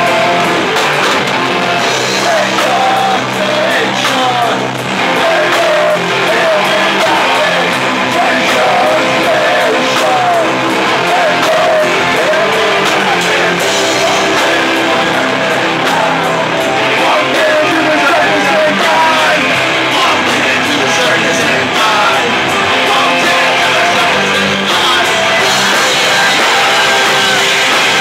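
Rock band playing live at high volume: electric guitar and bass with yelled singing.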